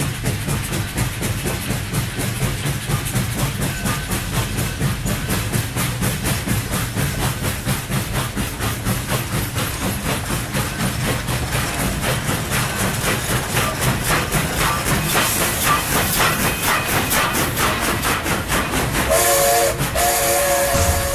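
Steam train running with a steady, rhythmic beat that quickens slightly over time. About two seconds from the end its whistle sounds twice, a short blast and then a longer one, with a burst of steam hiss.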